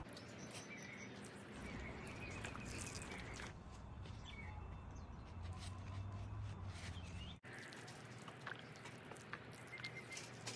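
Small birds chirping now and then over a faint, steady outdoor background hiss.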